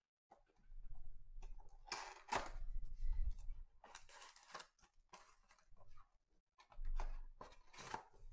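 Cardboard trading-card hobby box being opened and its foil card packs pulled out: a run of short rustles, scrapes and knocks from the lid flap and packs, with a few soft low thuds of the box being handled.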